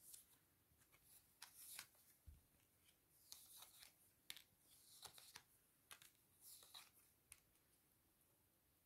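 Faint, soft rustles and light ticks of reading cards being handled, about a dozen short strokes that stop about seven and a half seconds in.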